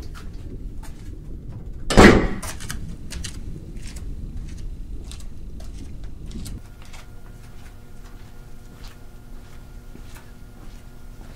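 A heavy metal door at a storage facility is pushed open with one loud, short clank about two seconds in. Footsteps on a concrete floor follow.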